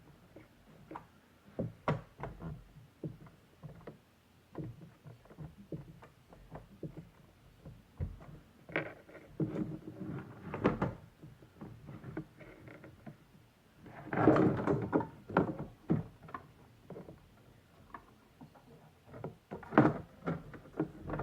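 Plastic toy parts being handled and fitted together: a string of irregular clicks, knocks and rustles, busiest around the middle and again near the end.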